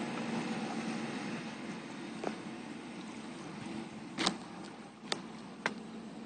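Yamaha 200 HPDI two-stroke V6 outboard on a flats boat running at speed in the distance, its drone slowly fading as the boat pulls away. Four sharp knocks cut through it, the loudest about four seconds in.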